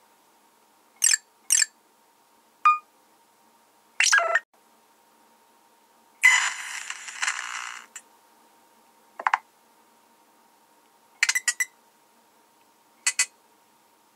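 Nothing Phone 1 notification tones played one after another: about eight short electronic blips and chimes, each a different pattern, with pauses between them. One is a falling tone, one lasts about a second and a half, and near the end there is a quick run of three ticks.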